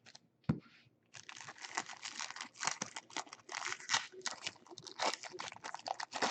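Plastic wrapping on a trading card pack crinkling and tearing as it is pulled open by hand: a quick, irregular run of scratchy crackles starting about a second in, after a single soft knock.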